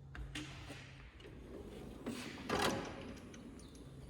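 Snap-on tool box drawer sliding open, with a few light clicks and the loudest rush of the slide about two and a half seconds in.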